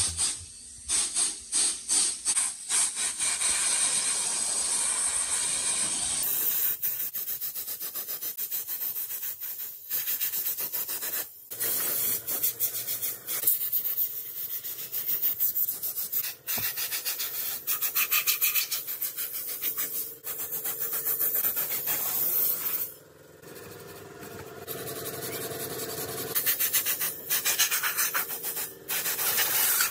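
Rapid rubbing and scraping of an abrasive or hand tool on rusty motorcycle parts, like sanding or wire-brushing, in several takes joined by abrupt cuts.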